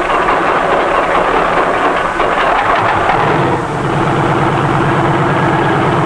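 Bell 47 helicopter's piston engine running on the ground as the main rotor spins up: a loud, dense mechanical drone that settles into a fast, even throbbing about three seconds in.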